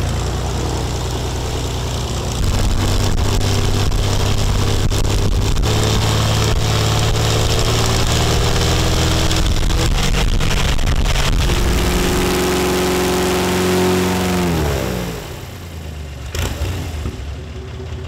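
Airboat engine and propeller running up in stages, the pitch stepping higher each time, with a heavy blast of wind on the microphone. About fifteen seconds in it throttles back and the pitch falls away.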